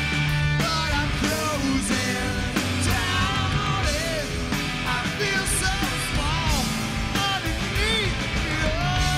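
Live rock band playing: a male singer singing over electric guitar and a drum kit with cymbals.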